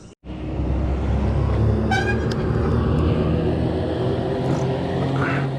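Motorcycle engine running steadily on the road, with one short horn toot about two seconds in.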